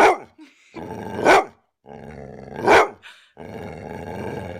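A dog growling in long rough rumbles, each building into a sharp bark, three barks about a second and a half apart, with a last long growl near the end.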